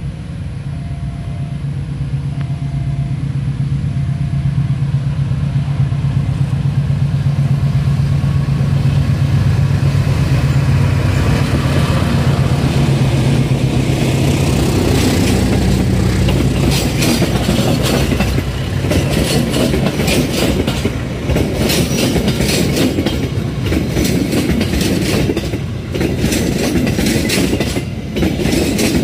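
Passenger train passing close by. A diesel locomotive's rumble builds as it approaches, then from about halfway on the carriages' wheels click rhythmically over the rail joints as they go past. A level-crossing alarm rings in two alternating tones for the first few seconds.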